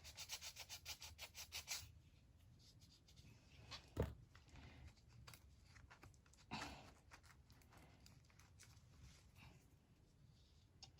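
Faint handling noises during a glue repair of a doll's neck: a quick run of scratching strokes, about eight a second, for the first two seconds, then a single knock about four seconds in and a short rustle a couple of seconds later.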